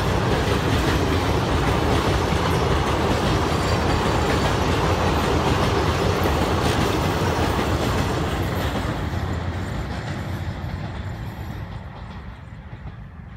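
Passenger coaches of an Indian Railways express train rolling across a concrete canal bridge, a steady rail noise with a low hum. From about eight seconds in it fades as the end of the train moves away.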